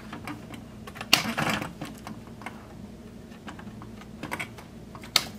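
Light plastic clicks and rattles as a refrigerator electronic control board and its wire-harness plug are pushed and snapped into a plastic control-panel housing, with a sharper click about a second in and another near the end.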